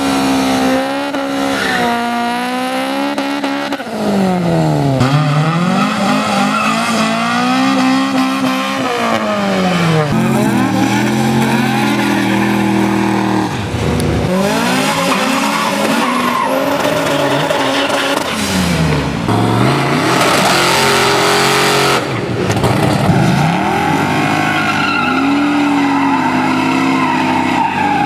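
Drag-racing car engines revving hard, their pitch dropping and climbing again and again, with spinning tyres squealing in burnouts.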